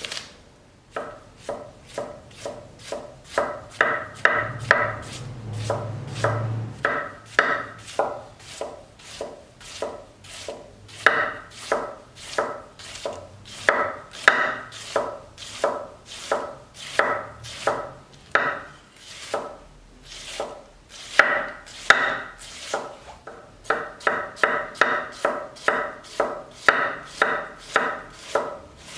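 A hammered (tsuchime) Japanese gyuto chef's knife slicing red cabbage into shreds on an end-grain wooden cutting board: a steady rhythm of about two cuts a second, each stroke ending as the blade meets the board.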